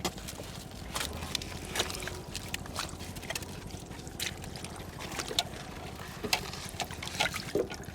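Water splashing and sloshing in irregular small splashes, as hands or a catch move in shallow water, over a steady low rumble.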